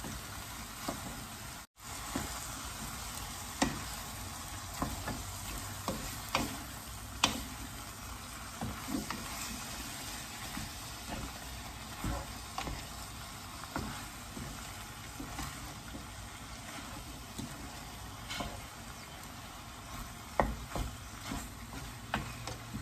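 Shrimp and vegetable stir-fry sizzling in a non-stick frying pan while a wooden spatula stirs and tosses it, with irregular knocks and scrapes of the spatula against the pan. The sound cuts out for an instant about two seconds in.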